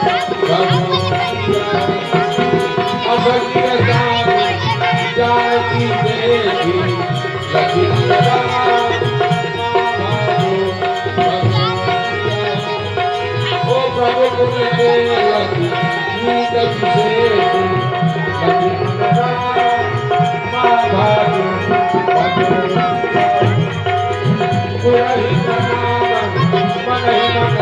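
Live instrumental accompaniment: tabla playing a steady rhythm under a held, sustained melody on a keyboard-type instrument.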